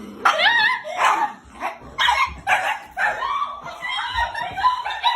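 A dog yipping and barking in quick, high-pitched cries, many of them bending in pitch, running into a longer whining cry in the second half.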